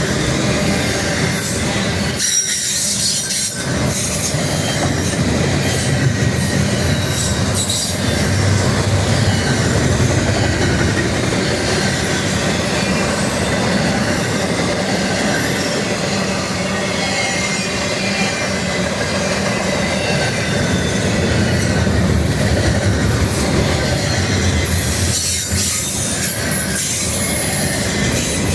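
Train's rail cars rolling past, a steady rumble with metallic wheel squeal running through it.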